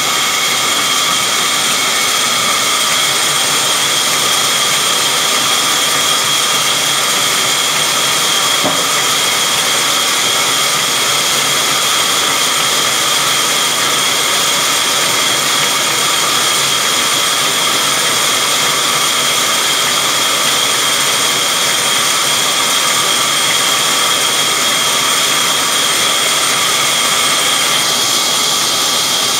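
Large sawmill band saw running, a loud steady high whine with hiss that holds unchanged.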